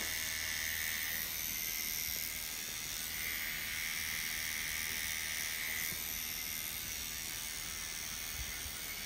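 Pen-style rotary tattoo machine running steadily with its needle lining skin: a constant motor whir over a hiss.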